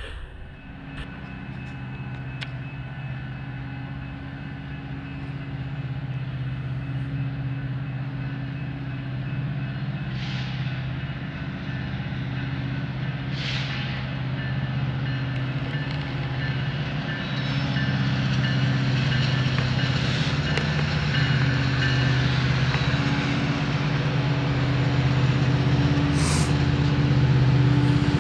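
Diesel locomotives of an approaching BNSF freight train, a steady low engine drone growing steadily louder as the train nears.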